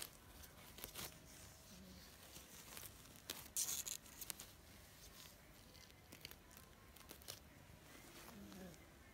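Faint scratching and crinkling of kittens' claws and paws on a disposable pad and the cardboard side of their box: scattered small scratches, with the loudest rustle about three and a half seconds in.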